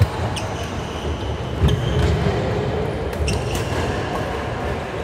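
Badminton rackets striking the shuttlecock in a rally, a handful of sharp hits, with low thumps of players' feet on the wooden court floor, over the steady noise of a large echoing sports hall.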